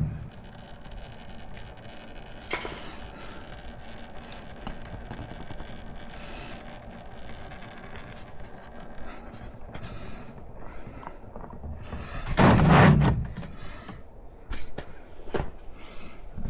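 Scattered small clicks and scrapes of hand work on a motorcycle, with one loud heavy clunk about thirteen seconds in and a smaller knock a couple of seconds later.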